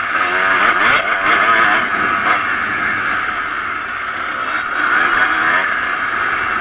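Kawasaki KX125 dirt bike's two-stroke single-cylinder engine being ridden hard, revving up and down several times in the first couple of seconds, then running steadier.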